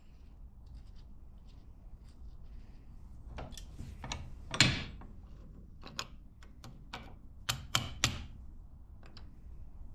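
Small metal clicks and knocks as a brass nut block and its screw are handled in a steel bench vise. The clicks are scattered, the loudest about halfway through, with two more sharp ones near the end.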